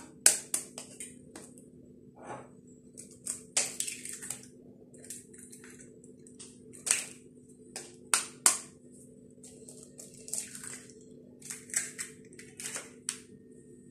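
Hen's eggs being tapped against a mixing bowl and their shells cracked and pulled apart: a run of sharp, irregular cracks and clicks, over a faint steady low hum.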